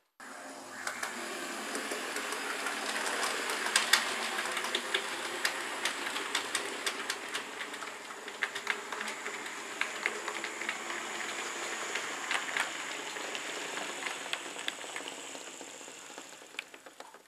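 Model train running along the layout track: a small electric motor's steady whirr with a high whine, and rapid, irregular clicking of the wheels over rail joints and pointwork.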